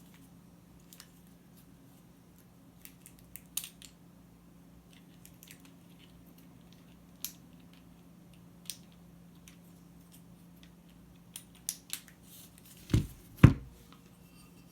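Keystrokes on a custom Baldr60 glass-case 60% mechanical keyboard with UHMWPE switches and GMK keycaps, pressed one at a time with pauses, in a small cluster about three seconds in. Near the end come two much louder, deeper strokes half a second apart.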